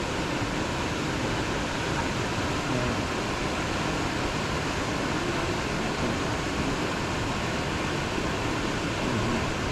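Steady rush of a waterfall and its stream, an even hiss that holds unchanged throughout.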